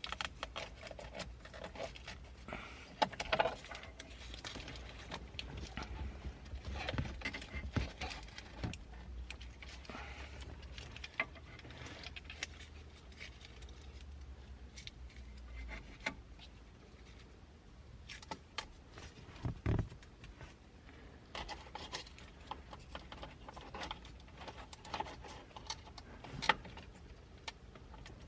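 Handling noises of car radio and dash work: scattered clicks, taps and rustles of plastic parts and wiring as the radio's connectors are plugged back in, with one heavier knock about two-thirds of the way through. A low hum runs under the first half and stops.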